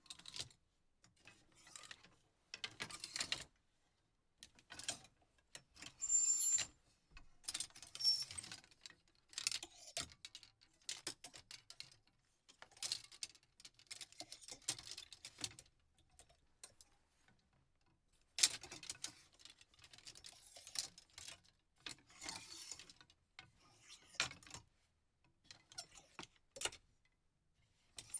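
Clothes hangers in a closet being moved about, clicking, rattling and scraping against one another in short, irregular bouts with brief pauses between them.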